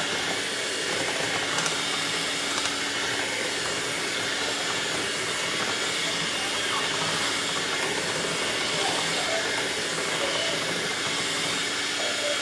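Electric hand mixer running steadily, its beaters whirring through thick cream cheese batter in a metal pan.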